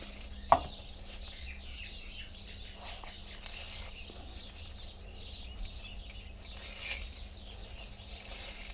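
Thin copper wire being pulled and unwound off a small transformer spool, with a sharp click about half a second in and a short scratchy rustle later on. Birds chirp in the background.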